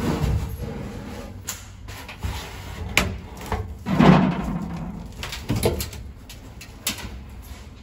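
Hands pushing and working a 1963 Ford Falcon's window glass loose in its body opening: scuffing and rubbing with several sharp knocks and clicks, the loudest push about four seconds in.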